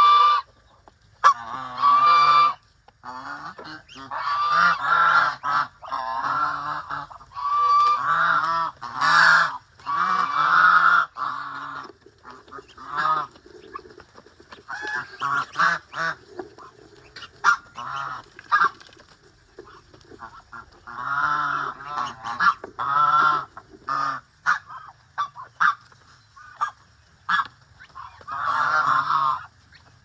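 Domestic geese honking over and over in loud calls about a second long each, with short clicks in the quieter gaps.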